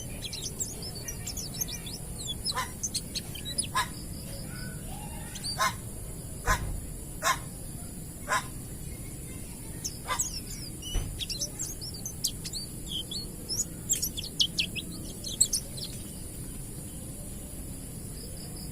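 Pleci (white-eye) singing in rapid clusters of high, sliding chirps and twitters, with a few sharper notes among them. The song stops about three quarters of the way through, leaving a steady high hiss.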